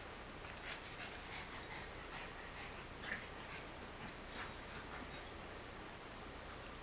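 A dachshund and a French bulldog play-wrestling, with short, faint dog noises now and then.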